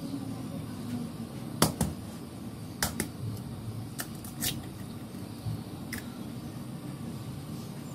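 Sharp taps and clicks of an egg being cracked against the rim of a plastic bowl and its shell broken open, a handful of them spread over several seconds with the loudest about one and a half seconds in. A low steady hum sits underneath.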